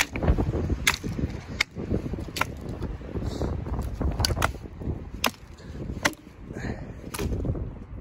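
Dry twigs and branches snapping in sharp, irregular cracks, about ten of them, with footsteps crunching through snow-covered deadfall and low rustling underneath.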